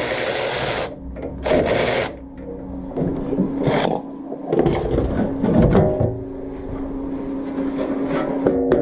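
Tool work on a car during a starter-motor removal: two loud bursts of scraping noise in the first two seconds, then a small motor whirring steadily for most of the rest.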